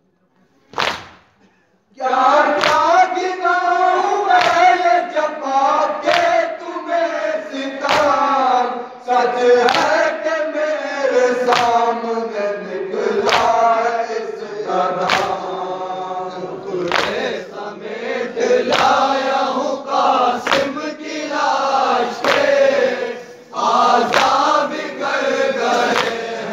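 Men's mourning group chanting a nauha in unison, kept in time by loud collective chest-beating (matam). Two beats come first, then from about two seconds in the chant starts, with a unison beat roughly every second and three-quarters.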